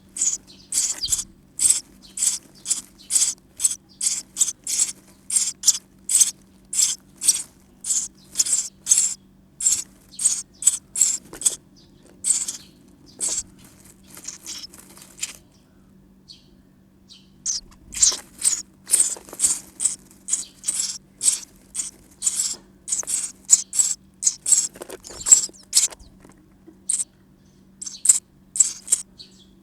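Sparrow nestlings calling inside a nest box: short, high-pitched cheeps about two a second, stopping for about two seconds a little past the middle, then starting again.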